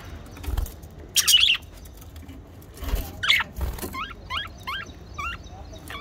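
Small parrots chirping: a loud shrill chirp about a second in and another around three seconds in, then four short rising-and-falling calls in quick succession. A few dull low bumps sound underneath.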